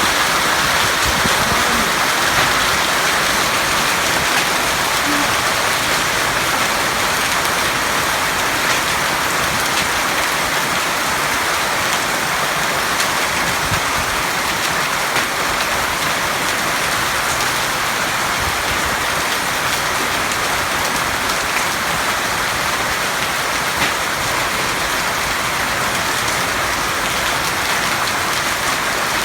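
Rain falling steadily in a storm, an even, unbroken hiss of drops.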